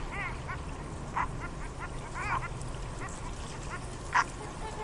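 Ducks quacking on a pond: scattered short calls, several in quick runs, with the loudest single quack about four seconds in, over a steady low background rumble.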